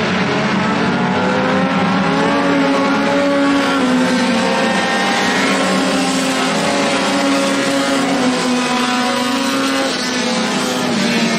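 A pack of four-cylinder Super 4 dirt-track race cars running at speed. Several engines rev at once, their pitches rising and falling as the cars pass.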